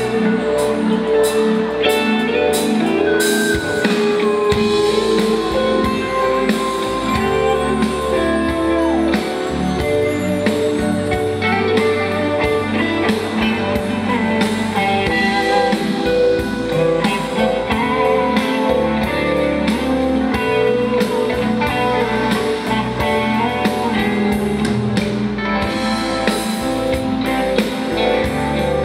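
Live pop band playing a song, guitars over a drum kit. A long held high note slides down about nine seconds in.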